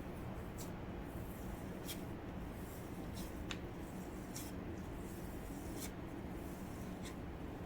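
A palm pressing and rubbing khoya against a tray to mash it smooth and lump-free, making soft scraping swishes about once a second over a steady low hum.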